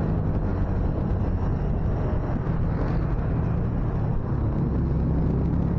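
Motorcycle engine running steadily at low speed, heard from the rider's seat, with a steady rush of wind and road noise.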